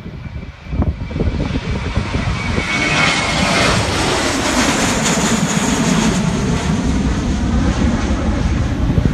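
Airbus A320 jet airliner at takeoff thrust, lifting off and climbing out close overhead. Its engines get much louder about a second in and then run loud and steady, a deep rumble with a high whine whose pitch falls as the jet passes over.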